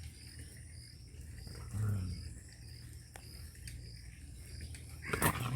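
A dog barks once, loudly, near the end, after a shorter, quieter low sound about two seconds in.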